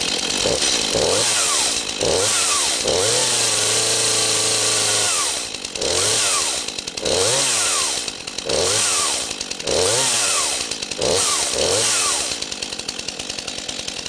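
Brand-new Stihl MS 251 C two-stroke chainsaw running just after its first cold start, its throttle blipped about eight times so the engine speed rises and falls, once held high for about two seconds. It drops back to a steady idle near the end.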